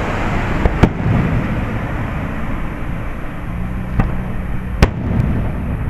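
Aerial fireworks shells going off in sharp bangs over steady background noise: two close together just under a second in, then a few more about four to five seconds in.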